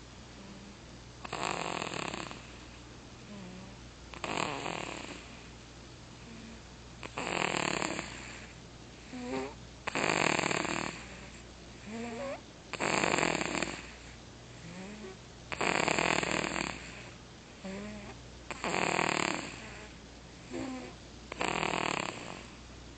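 Baby snoring in sleep: eight snores evenly spaced about three seconds apart, each a second or so long, with faint squeaky whistles between some of them.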